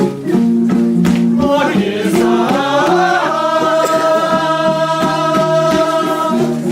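Song accompanying a Sherpa dance: a plucked string instrument plays a repeating rhythmic figure, and a singing voice comes in about a second and a half in, sliding up and then holding one long note.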